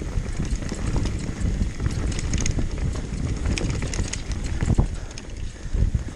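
Downhill mountain bike clattering over rough trail: a constant rumble with many small knocks and rattles.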